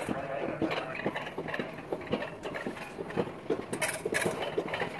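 Mountain-coaster cart rattling along its metal rail track, with an irregular run of clicks and knocks.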